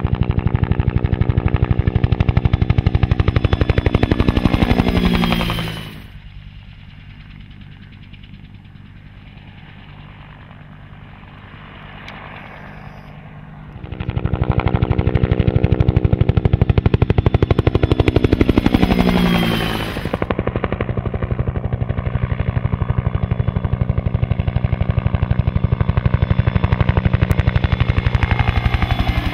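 Bell UH-1H Huey helicopter flying past, its two-bladed main rotor beating with a fast, heavy blade slap. The pitch drops as it passes close, about five seconds in and again just before twenty seconds. In between it fades off and comes back, and near the end it holds close and steady.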